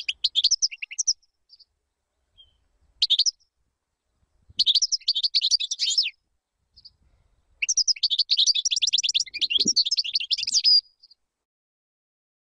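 European goldfinch singing: bursts of rapid, high twittering phrases with short pauses between them, the longest running about three seconds near the end.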